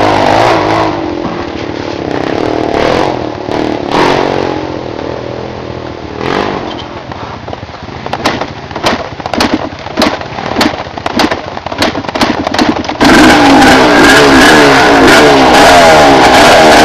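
Trail motorcycle engine revving unevenly as it climbs a steep, slippery dirt track. Short knocks and scrapes clatter from about eight to thirteen seconds in. About thirteen seconds in, the engine suddenly gets much louder and revs hard.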